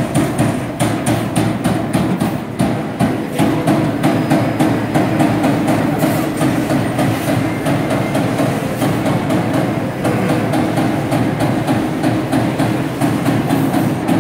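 Servo-driven CNC turret punch press punching sheet metal: a fast, even run of sharp hits, about four a second.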